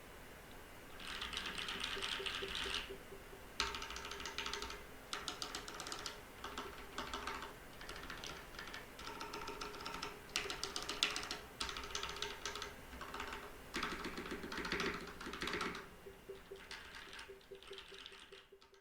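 XD87 mechanical keyboard with lubed and filmed Gateron Yellow linear switches on an integrated steel plate, with DSA keycaps, being typed on in quick runs of keystrokes with short pauses between them.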